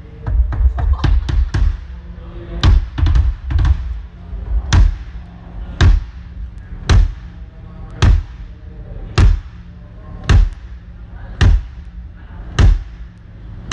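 A drum on a drum kit struck on its own: a quick run of hits at first, then single hits evenly spaced about once a second, as in a drum sound check.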